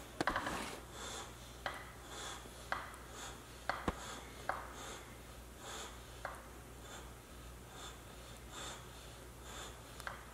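Faint, scattered clicks and light scratching from a macaw's beak and claws gripping and climbing over a wicker armchair. One click about four seconds in is sharper than the rest.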